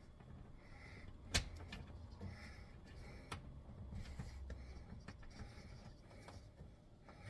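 Sharp clicks and knocks of plastic trim and a wiring connector being handled and pushed, the loudest click about a second and a half in, with heavy breathing between.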